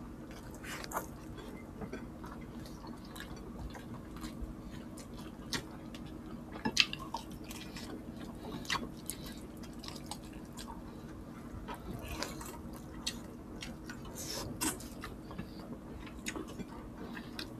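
Eating sounds: two people chewing creamy chicken pastel and rice eaten by hand, with scattered wet smacks and small clicks, over a faint steady hum.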